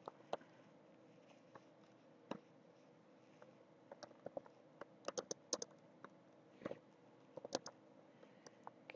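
Faint, scattered keystrokes on a computer keyboard: a few single taps, a quick run of keys in the middle, and a few more near the end.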